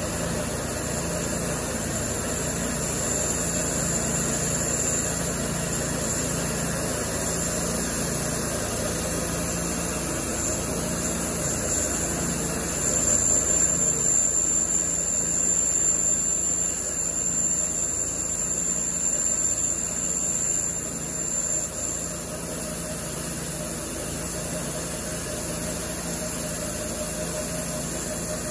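Cook's MP-32 portable bandsaw sawmill running steadily with its band blade cutting lengthwise through a log, a thin high whine above the engine for most of the cut that fades near the end; a little louder in the middle.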